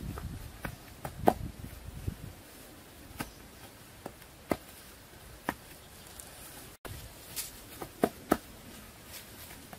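Irregular sharp taps and soft thuds of hands setting and patting squares of grass turf into loose soil.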